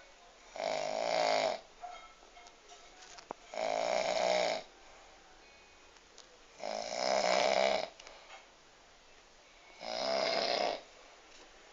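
An elderly woman snoring: four loud snores at an even pace, one about every three seconds, each lasting about a second.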